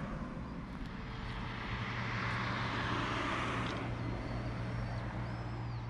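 A vehicle passing: its engine and rushing noise swell to a peak about three seconds in, then fade.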